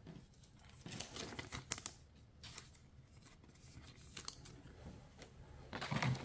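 Faint rustling and light clicks of trading cards being handled and squared into a stack, then louder rustling near the end as a booster pack is drawn out of its cardboard display box.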